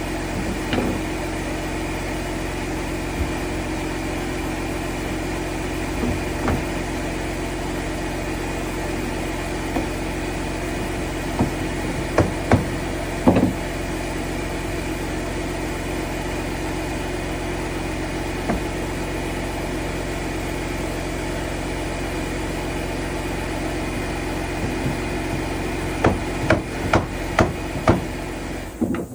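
Hammer blows on wood: a few scattered strikes, a cluster of strikes around the middle, and a quick run of strikes near the end. Behind them runs a steady mechanical hum of fixed pitch.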